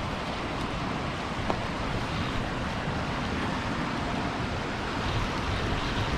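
Steady rushing of river water, with a single faint click about a second and a half in.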